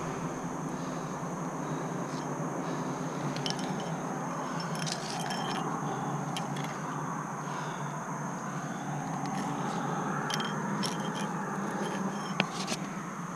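Metal climbing gear, carabiners and quickdraws on the climber's rack, jingling and clicking now and then as the climber moves up the rock, with one sharp click near the end.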